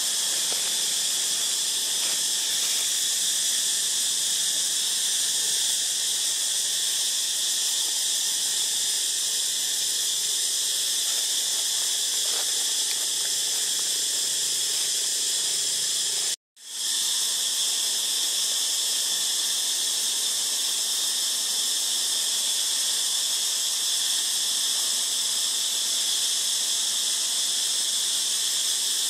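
Steady high-pitched hiss of an insect chorus, unbroken except for a brief cut-out about sixteen seconds in.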